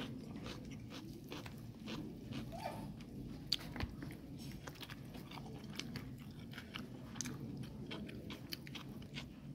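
A person chewing and biting food close to the microphone, with many short sharp crunches among the chewing.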